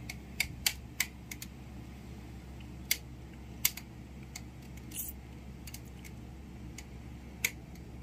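Irregular sharp ticks and crackles from a Panasonic split air-conditioner indoor unit as its evaporator coil frosts and ices over, with a steady low hum underneath. The blower fan is not turning, which the owner takes for a failed fan motor, so the coil freezes.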